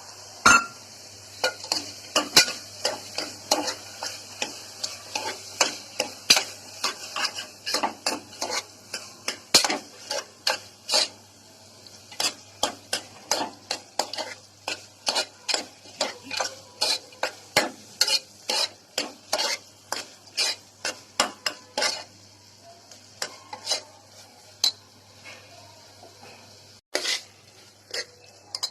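Spoon stirring and scraping carrot halwa in a pot, about two strokes a second, over a faint steady sizzle. The strokes thin out after about twenty-two seconds, with a few more near the end.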